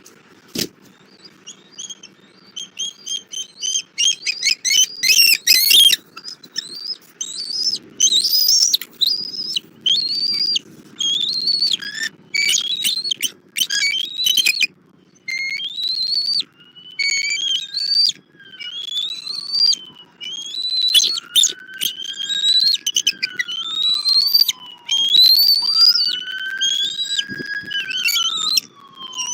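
Bald eagles calling: rapid series of high, piping chitters, then long sliding and falling whistles in the second half.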